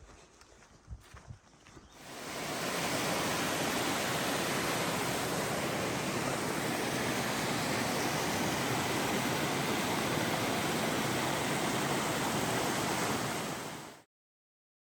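Steady rushing of running water, swelling in about two seconds in after a few faint clicks, then cutting off abruptly near the end.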